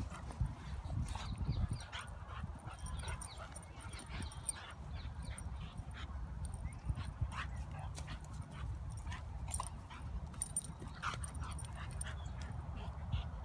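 A Staffordshire bull terrier–Rhodesian Ridgeback cross and a white Boxer puppy playing rough together, with many short yips and whines scattered throughout, over a steady low rumble.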